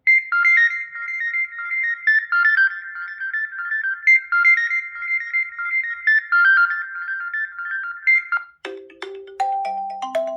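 Xiaomi 12 Pro ringtone: a fast, high-pitched electronic melody of quick repeating notes that stops about eight seconds in. A different, lower-pitched ringtone melody begins right after.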